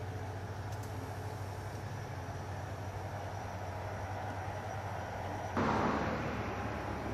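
Steady low outdoor rumble, changing abruptly about five and a half seconds in to a brief louder rush of noise before settling again.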